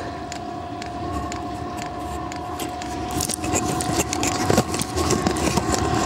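Chinese diesel air heater starting up: a steady whine from its fan motor, with irregular clicks and knocks over it. It gets a little louder about three seconds in.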